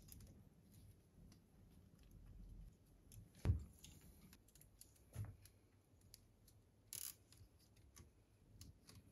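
Faint scattered clicks and light knocks of wires being handled into a plastic cable chain (drag chain), with a sharper knock about three and a half seconds in and a brief high scrape near seven seconds.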